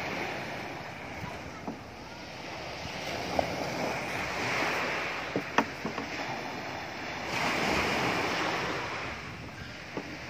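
Small sea waves breaking and washing up on a pebble shore, the wash swelling twice, with a few sharp clicks close by.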